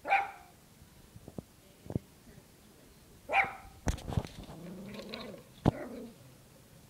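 Puppy giving two short, high barks during play, the first right at the start and the second about three seconds later, with a few sharp knocks scattered between them.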